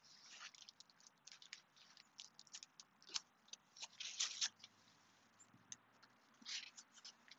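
Hardcover picture book being handled, its cover swung open and pages turned: a string of faint paper rustles and crackles, loudest about four seconds in.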